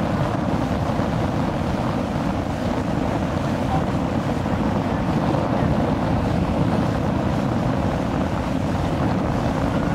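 Steady wind noise on the microphone over rushing water and the running outboard motor of a small boat under way at speed.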